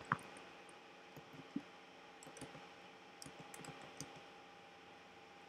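Faint, scattered computer keyboard clicks: a sharp tap just after the start and another about a second and a half in, then a run of lighter keystrokes, over a faint steady hum.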